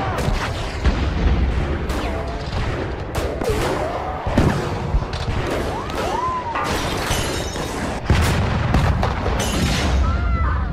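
Artillery shells exploding in a Civil War battle scene: a string of heavy booms, one every second or two, with a deep rumble running between them.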